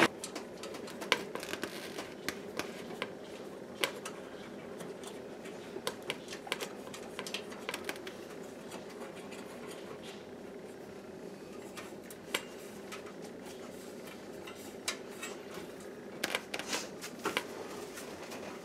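Steady low hum of an electric garage heater's fan running, with scattered light clicks and taps as its sheet-metal louvers and housing are handled and tilted.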